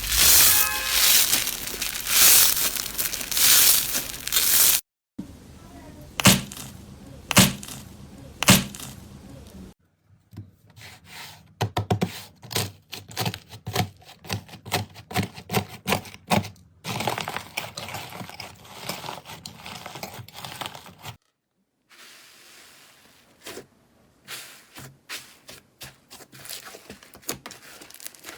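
Slime worked by hand, giving crackling, crinkling and clicking sounds. It comes in several separate takes, with short silent breaks between them.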